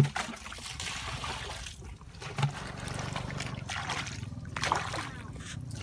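Muddy water splashing and trickling as hands work through a shallow mud puddle, with a sharp knock at the start as a plastic bucket is handled and a smaller thump about two and a half seconds in.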